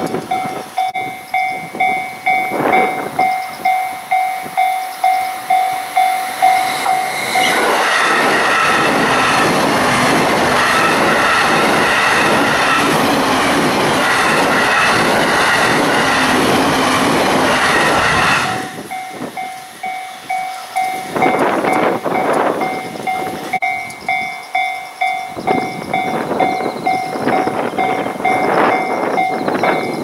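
A level-crossing warning bell rings steadily at about two strikes a second. About 7 seconds in, a JR East E531 series train with double-deck cars passes at speed for about ten seconds and drowns the bell. The bell then rings on after it, with gusts of wind on the microphone.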